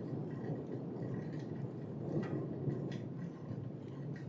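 Low rolling rumble of thunder fading slowly, with a few faint ticks over it.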